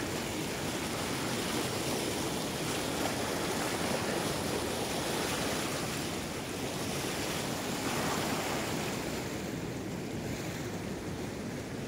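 Swollen Río Santiago in rainy-season flood: a steady rushing noise of fast, sediment-laden current, easing slightly near the end.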